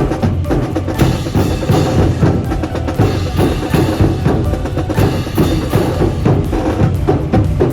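Brass band playing march-style music, with snare and bass drums beating a steady, driving rhythm.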